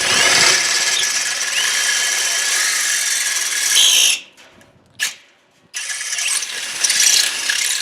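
Power drill with a 1/4-inch bit boring through the face of a Loklatch gate latch to enlarge a starter hole for a padlock. It runs for about four seconds with a high whine, stops, gives a short blip, then runs again for the last two seconds.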